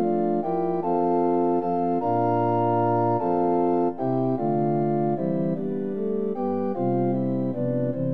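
Instrumental organ music: held chords over a moving bass line, the chord changing about every half second to a second.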